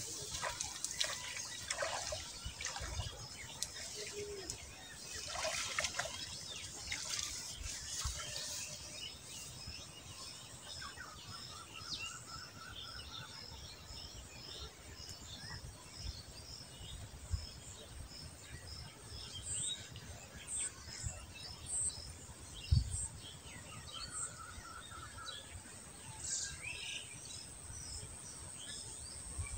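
Small birds chirping, with a high chirp repeated evenly, about two or three a second, for several seconds midway. In the first several seconds there is light splashing and dripping of water from a cast net being pulled out of the canal.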